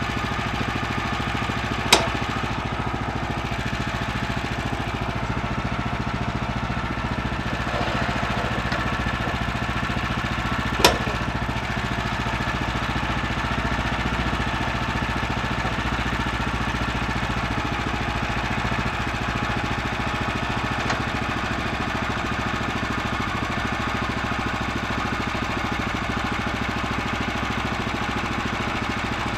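Gas engine of a Woodland Mills HM126 band sawmill running steadily, with two sharp knocks, about 2 seconds and 11 seconds in.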